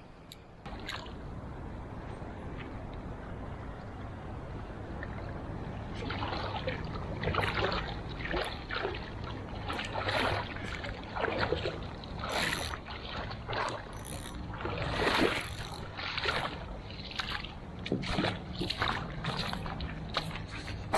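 Water sloshing and splashing in irregular bursts over a steady low rumble, the bursts starting about a third of the way in.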